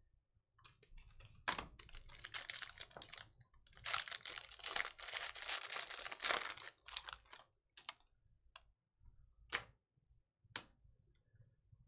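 Foil wrapper of a Panini Prizm trading-card pack being torn open and crinkled for several seconds, followed by a few separate sharp clicks as the stack of cards is handled.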